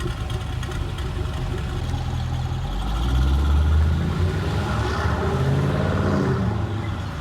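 Chevy SS's LS3 V8 running and revving. The engine grows louder about three seconds in and rises in pitch a little after five seconds.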